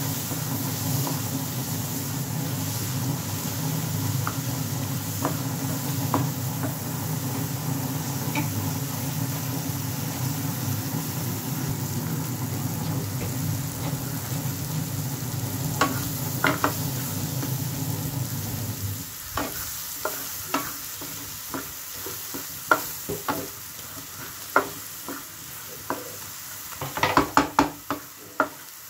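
Chana dal frying in an aluminium pan with a soft sizzle, under a steady low hum that stops about two-thirds of the way through. After the hum stops, a wooden spatula stirs and scrapes the pan in short irregular knocks, thickest near the end.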